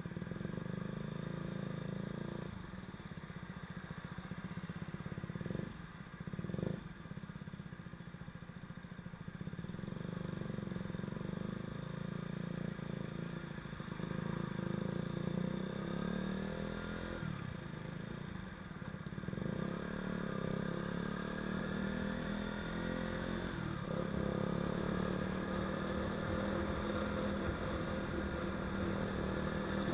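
KTM Duke 125's single-cylinder four-stroke engine running under load as the bike is ridden, with a few short breaks in the engine note along the way. Wind noise on the microphone runs underneath.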